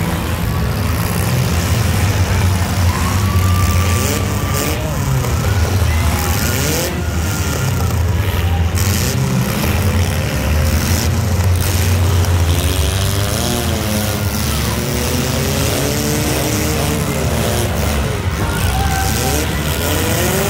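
Several compact demolition-derby cars' engines running and revving together, their pitch rising and falling again and again over a steady low rumble.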